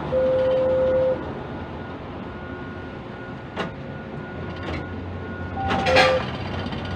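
Quay crane machinery running with a steady low hum as the spreader lowers a container into a ship's hold. A steady electronic beep sounds for about a second at the start, a few clicks follow, and near the end there is a louder clatter of metal knocks with two short beeps.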